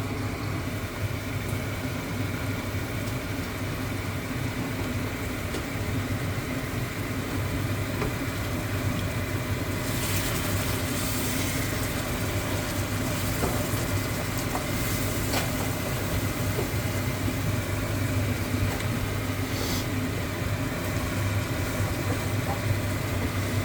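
A steady mechanical hum over an even hiss, with a few short louder hisses about ten, fifteen and twenty seconds in.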